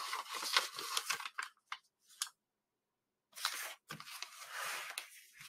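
Origami paper being handled and folded: crisp rustling and crinkling with sharp little clicks as the sheet is creased, broken by about a second of dead silence midway before the rustling resumes.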